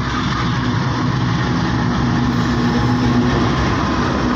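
Diesel-electric locomotive of an arriving passenger train passing close alongside the platform, its engine running as a steady, loud low drone.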